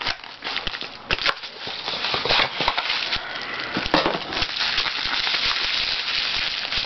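Plastic bubble wrap crinkling and crackling continuously with many small clicks as a wrapped item is handled and unwrapped, after a few knocks in the first second or so.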